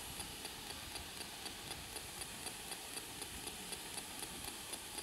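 Faint, even ticking, several ticks a second, over a low steady hiss.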